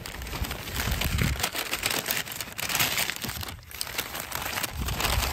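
Brown paper bag and paper towel crinkling and crumpling in the hands as the bag's top is gathered closed, a dense run of crackles with a short lull in the middle.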